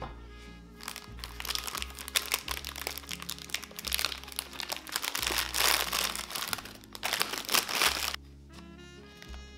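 Clear plastic wrapping crinkling loudly as it is pulled and peeled off a cardboard box, with soft background music underneath. The crinkling starts about a second in and stops suddenly about a second before the end.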